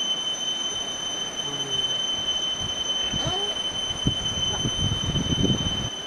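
A pig grunting and snuffling in low, irregular bursts, which grow denser and louder in the last couple of seconds. Behind it runs a steady high-pitched whine on two tones.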